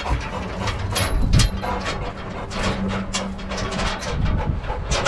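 Irregular knocks and scuffles in a truck's metal cargo bed as a Rottweiler moves about, over a steady low hum.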